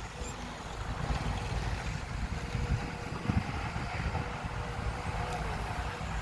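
Sumitomo SH210 hydraulic excavator's diesel engine running steadily under load as the machine digs and swings its bucket, with a faint steady whine that dips slightly near the end.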